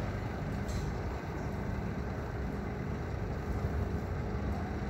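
Steady low rumble of lorry engines and traffic, with a faint steady hum over it.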